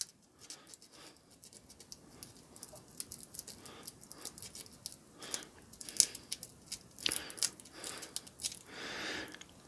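Sandpaper rubbed by hand against the end of a small brace piece: a faint, irregular scratching of short strokes, a little stronger in the second half. The surface is being scuffed so that epoxy will grip it.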